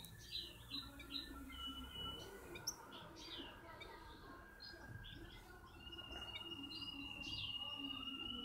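European goldfinch twittering in short, quick chirps. A steady high-pitched tone joins about two-thirds of the way in.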